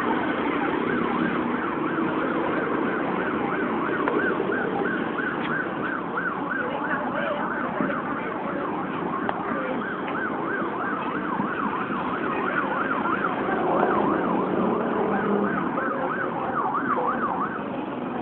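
A siren yelping, its pitch swinging quickly up and down over and over, over the steady noise of street traffic and motorbikes.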